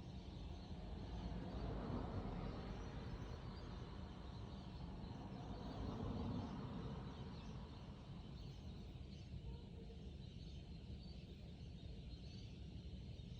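A flock of parrots calling at a distance, many small chattering calls overlapping all through. Under them runs a steady low rumble that swells twice, about two seconds in and again around six seconds.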